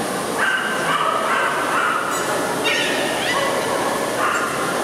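A dog whining: a string of high, held whines that step up and down in pitch, with a couple of short rising yips in the middle.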